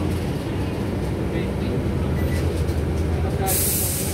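Steady low rumble inside a moving city bus: engine and road noise. A short hiss comes near the end.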